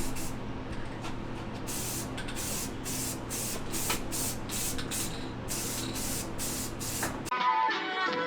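Spray paint hissing in about a dozen short bursts, one after another, over a steady low hum. It cuts off abruptly near the end, where music starts.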